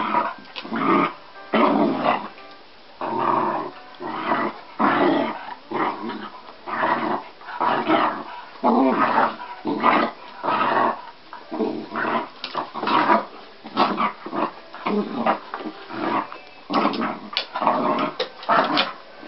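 A dog growling in repeated short bursts, about one or two a second, as it play-fights with a cat.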